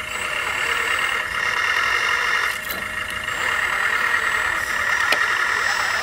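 1/14-scale RC construction machines running, a steady whine of their small motors and drives, with a sharp click about five seconds in.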